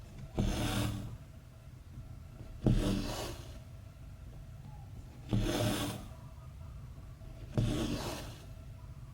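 Embroidery floss pulled through cross-stitch fabric, a rasping swish four times, every two to three seconds; each starts sharply and fades within about a second. A steady low hum lies underneath.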